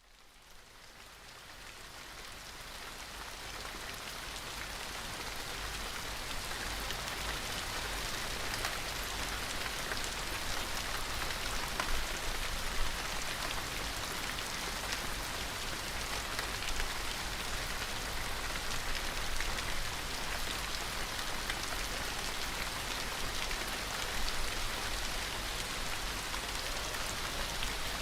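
Steady rain falling, fading in from silence over the first few seconds, with the fine patter of individual drops throughout.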